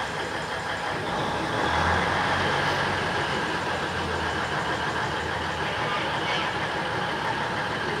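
Diesel locomotive engine idling steadily, with a low hum that grows stronger for a few seconds about two seconds in.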